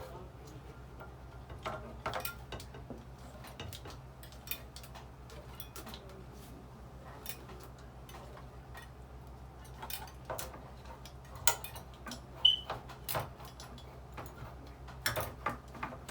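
Manual can opener clicking and clattering in irregular bursts as it is worked around the rim of a can, over a steady low hum.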